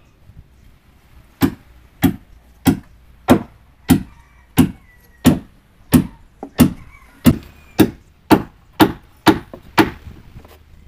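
Steady series of about fifteen heavy chopping strikes into wood, roughly three every two seconds, starting about a second and a half in and stopping shortly before the end.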